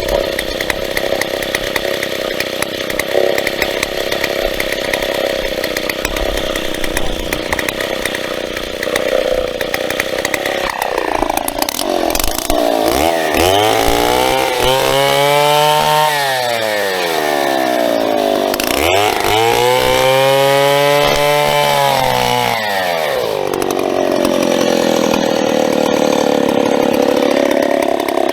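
Large vintage Stihl two-stroke chainsaw running steadily at high revs for about ten seconds, then its engine speed rising and falling in two long, slow swells and dipping once more near the end.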